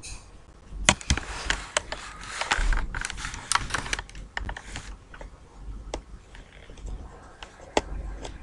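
Computer keyboard keys clacking in a quick run for a few seconds, then scattered single clicks.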